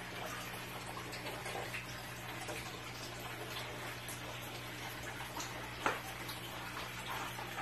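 Small waterfall pouring into a pond tub: a steady splashing of falling water, with a low steady hum underneath. A single sharp click comes about six seconds in.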